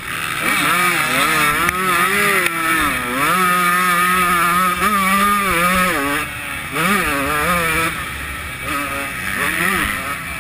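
125cc two-stroke motocross bike engine revving hard under race throttle, its pitch climbing and dropping several times as the rider shifts and rolls off. It holds high and steady for a few seconds in the middle, then dips sharply and picks up again.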